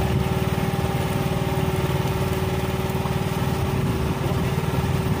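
Small engine on a fishing boat running steadily with an even, fast chugging.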